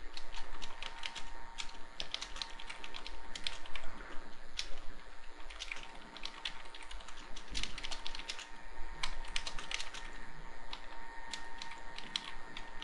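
Typing on a computer keyboard: a run of uneven key clicks with short pauses as a sentence is typed out.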